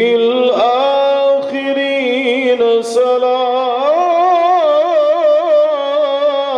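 Solo male voice reciting the Quran in the melodic Iraqi style, holding one long drawn-out vowel on a steady pitch, then from about four seconds in wavering through quick ornamental turns.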